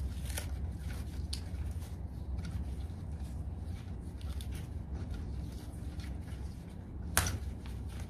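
Gloved hands handling electrical wires and twist-on wire connectors in a metal junction box: scattered light clicks and rustles, with one sharper click about seven seconds in.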